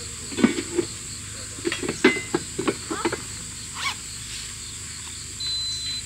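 Light knocks and clinks of small camp-kitchen items being handled, several in quick succession, over a steady background chorus of crickets and other insects. A thin high steady tone comes in near the end.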